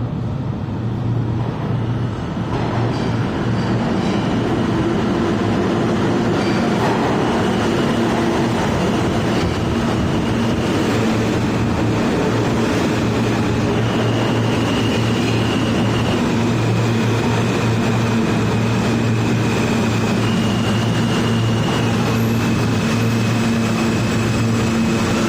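R160B subway train with Alstom propulsion running, a loud steady rumble of wheels and motors that builds over the first few seconds. Thin high whine tones come and go from about the middle on.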